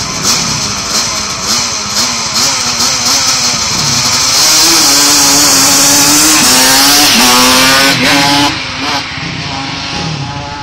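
Racing quad's engine revved at the start line, then pulling away at full throttle, its pitch climbing and stepping back down through several gear changes. About eight and a half seconds in, the sound drops off sharply as it heads away.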